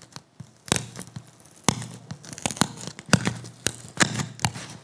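Styrofoam squeezed and pressed in the hands, giving a string of sharp, irregular snaps and crackles: a foley imitation of bubble wrap being popped.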